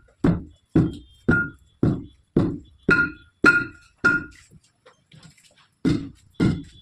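Hammer blows on a steel wheel and tyre while the tyre is being worked off the rim, each blow with a short metallic ring. About eight steady strikes at roughly two a second, a pause of about two seconds, then two more.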